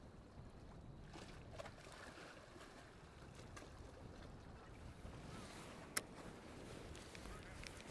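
Faint, low wind rumble on the microphone, with a single sharp click about six seconds in.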